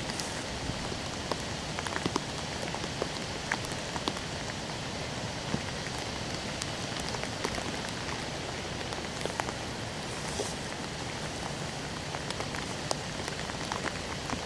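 Steady rain falling on wet pavement, with individual drops ticking sharply close by, from the trailing rain of Hurricane Sandy as the storm moves away.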